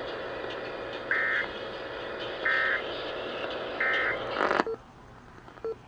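Emergency Alert System end-of-message code: three short, buzzy two-tone digital data bursts about a second apart, heard over broadcast radio hiss. They signal the close of the alert. About four and a half seconds in, the hiss cuts off sharply, leaving only faint noise.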